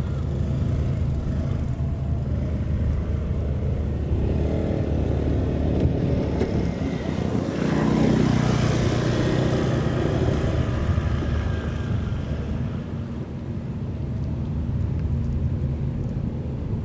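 A boat's engine drones steadily. Just past halfway it swells to a louder rush as the vessel passes close, then eases off.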